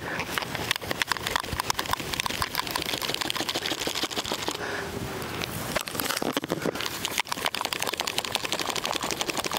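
Rapid, irregular clicking and rattling from the carbon fiber telescoping antenna pole and its fittings being handled and worked at.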